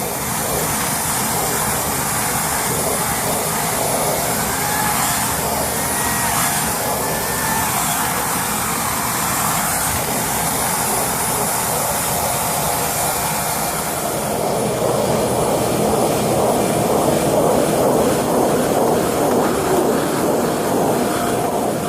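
Vacuum cleaner running steadily while cleaning carpeted stairs; about fourteen seconds in its sound gets a little louder and lower in tone.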